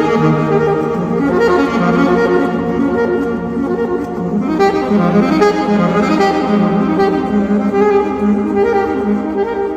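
Instrumental background music with sustained melodic notes.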